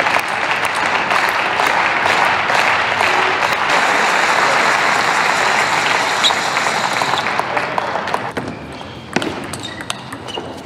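Audience applauding and cheering, fading out about eight seconds in, followed by a few sharp taps of a table tennis ball.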